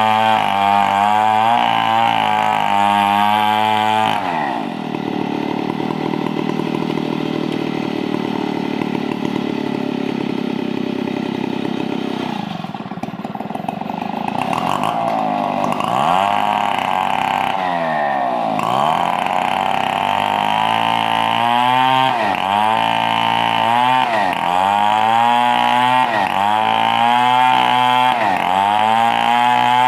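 Two-stroke chainsaw cutting lengthwise along a log. The engine runs under load, lower and steadier for a stretch about four seconds in; from about the middle its pitch sags and recovers every second or two as the chain bites into the wood.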